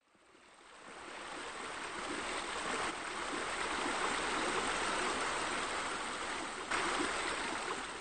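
Running water, an even rushing like a stream, fading in over the first couple of seconds and then holding steady.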